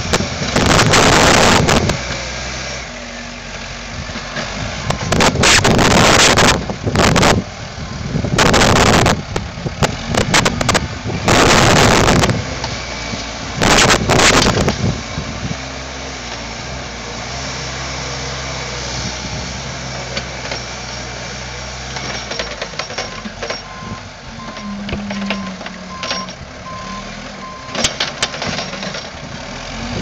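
Case 590 Super M backhoe loader's diesel engine running steadily, with several loud rushing bursts of wind on the microphone in the first half. Near the end a backup alarm beeps for a few seconds, evenly spaced.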